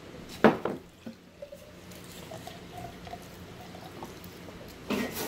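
A drink being poured from a pitcher into a plastic cup, the liquid trickling steadily as the cup fills. A sharp knock about half a second in.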